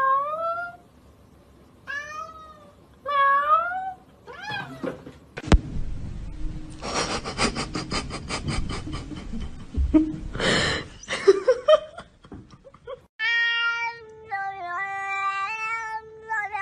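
Domestic cats meowing: four short, rising meows in the first four seconds, then a rapid rasping rattle, and near the end a run of long calls held at steady, stepping pitches.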